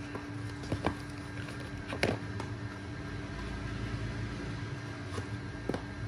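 A few light clicks and knocks, the loudest about two seconds in, as a Zippo lighter is handled and lifted out of its gift box, over a steady low hum.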